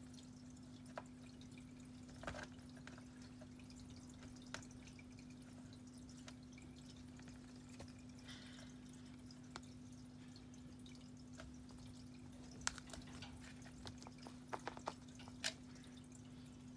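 Light, scattered taps and clicks of a kitten batting a toy mouse, several in quick succession near the end, over a steady low electrical hum.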